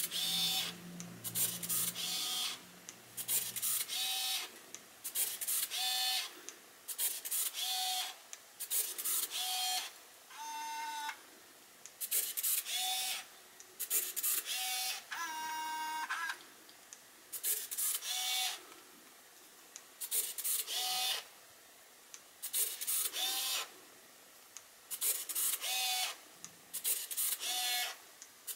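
Pentax Espio 120SW compact film camera's small motor whirring in short bursts, about one every two seconds: the shutter firing and the motor winding the film on a frame each time. Two longer, higher-pitched whirs come near the middle.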